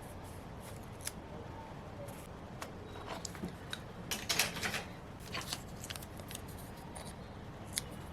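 Scissors cutting paper: scattered short snips, with a denser run of crisp cutting strokes about four seconds in.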